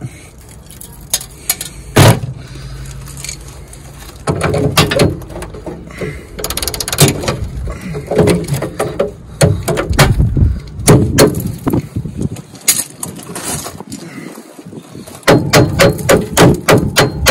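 A ratchet and spanner working rusted tow-bar bolts: a run of sharp metallic clicks and clanks against the steel, coming quickly near the end.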